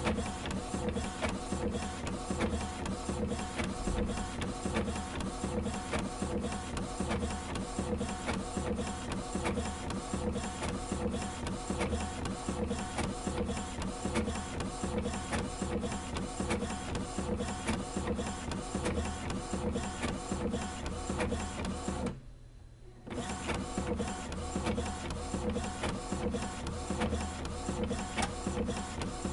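A machine running with a steady hum and fast, continuous clattering clicks. It cuts out briefly about twenty-two seconds in, then resumes.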